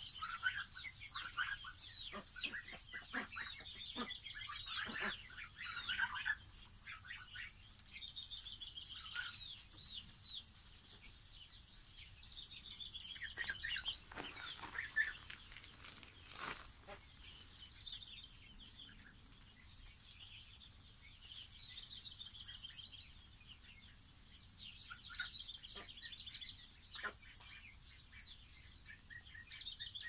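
Five-week-old chicks and ducklings peeping and trilling in short high calls, thick in the first few seconds and then in scattered bursts, with a few sharp clicks among them.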